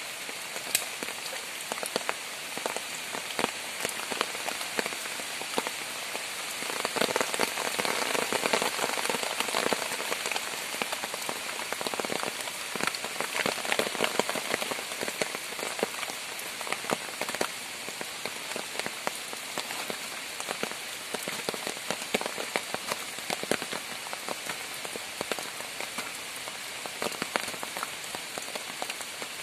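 Steady rain falling on wet ground and leaf litter, a constant hiss dotted with many small drop ticks. It grows louder for several seconds in the middle, then settles back.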